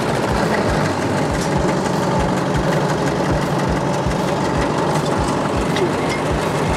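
Steam engine of a converted 1967 Land Rover chuffing at full throttle: a quick, even beat of exhaust thumps over a steady mechanical running noise.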